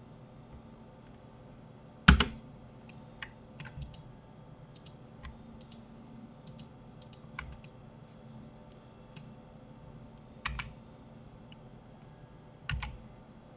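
Computer keyboard keys and mouse buttons clicking at irregular intervals, with louder clacks about two seconds in, near ten and a half seconds and near the end, over a faint steady hum.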